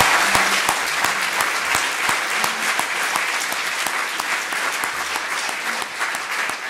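A large audience applauding steadily: dense clapping from many hands.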